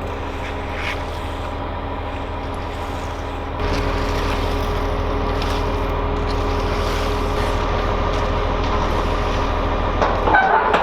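A heavy engine, like a truck's, running steadily. It steps up louder about three and a half seconds in and holds there.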